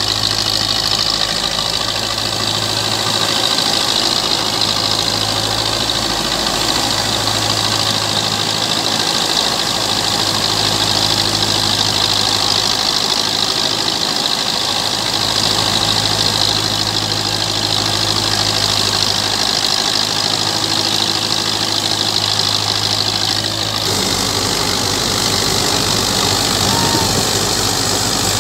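Belarus 510 tractor's diesel engine running steadily under load while driving a threshing machine, mixed with the machine's steady high-pitched whir. The sound changes abruptly near the end.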